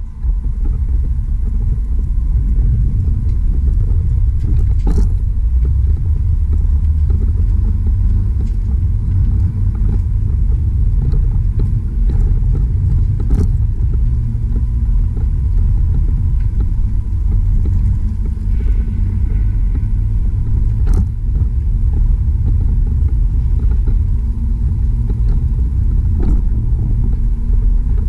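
Steady low rumble of wind buffeting the microphone of a camera carried on a moving bicycle, mixed with tyre noise on pavement, with a few sharp clicks scattered through it.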